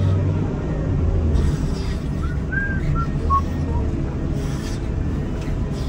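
Komatsu wheel loader's diesel engine running steadily with a low hum. A few short whistled notes come about two to three and a half seconds in.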